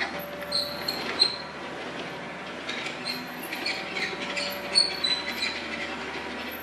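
Kubota KX91-2 mini excavator at work: diesel engine running steadily under intermittent high-pitched metal squeals and a couple of sharp clanks from the moving arm, bucket and undercarriage.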